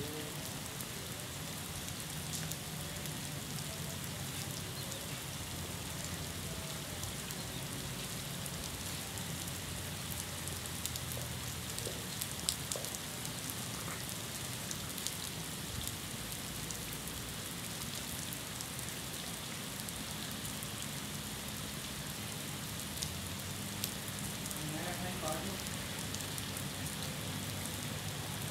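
Steady rain falling on a paved road and wet tiles: a constant hiss with many small, sharp drop ticks.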